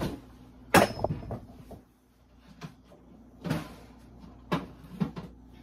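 Refrigerator door being opened and shut: a sharp clack a little under a second in, then a few softer knocks later on.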